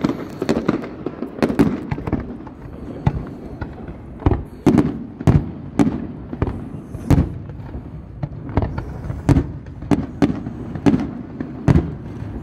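Aerial fireworks shells bursting in a rapid string of bangs: a dense patter of reports in the first couple of seconds, then separate loud bangs about every half second to a second.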